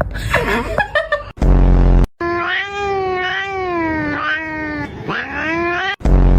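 A cat yowling in one long, wavering cry of nearly four seconds, with short cries before it. A short, loud, low buzz comes just before the cry and again right after it.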